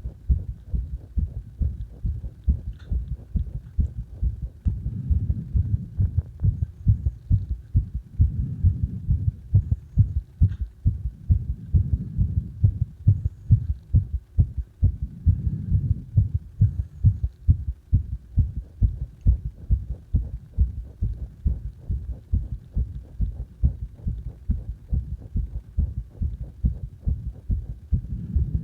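A person's heartbeat, picked up close up: a fast, even train of short low beats. In the first half it swells louder every few seconds.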